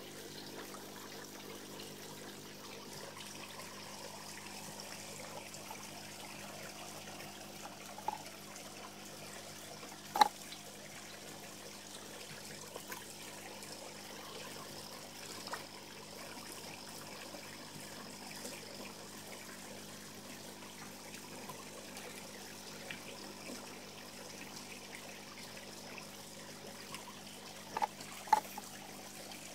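Water running and trickling steadily into a garden pond, with a faint steady hum underneath. A few sharp splashes stand out, the loudest about ten seconds in and a pair near the end.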